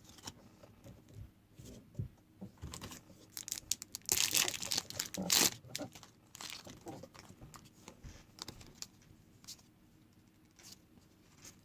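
Trading-card pack wrapper being torn open, with a loud ripping stretch about four seconds in. Around it come crinkling of the wrapper and light clicks as the cards are handled.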